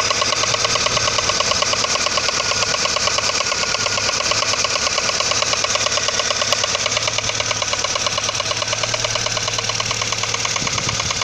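Audi 80 engine running steadily with a fast, even knock.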